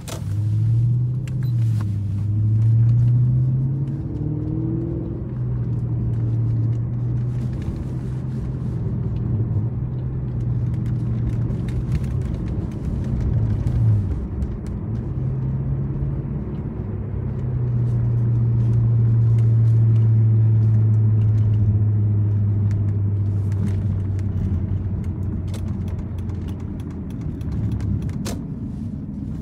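Toyota Celsior's V8 engine and aftermarket Three Cats exhaust heard from inside the cabin while driving: a low drone that rises and falls with the throttle, holds steady for several seconds at a cruise, over tyre and road rumble.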